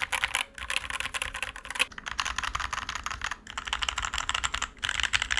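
Fast typing on a tape-modded Dierya DK61E 60% mechanical keyboard fitted with new keycaps: rapid key clacks in quick runs, broken by a few brief pauses.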